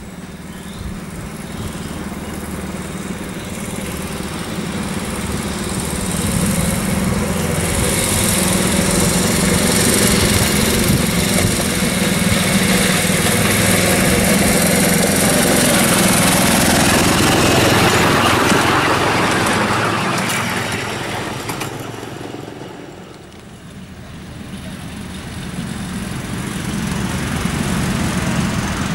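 Small engine of a miniature railway diesel-outline locomotive running as it approaches and passes, growing steadily louder to a peak about two-thirds of the way through and then fading. After a brief drop, another miniature train is heard approaching, getting louder near the end.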